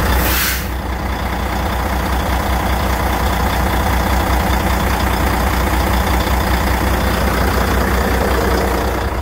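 A 2004 Volvo highway tractor's diesel engine, which looks to be a Volvo D12 inline-six, idling steadily with an even low rumble. A brief hiss comes right at the start.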